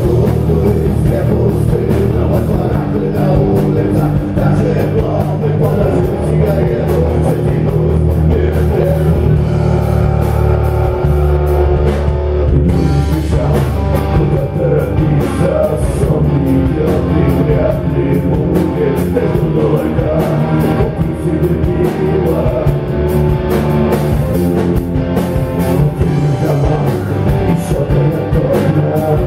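Live rock band playing loudly, with electric guitars over a heavy bass line.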